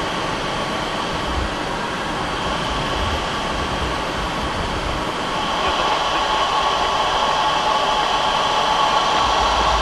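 MiG-29 jet fighter in high-altitude flight: a steady rushing noise of engines and airflow with a faint, even whine, growing slightly louder from about six seconds in.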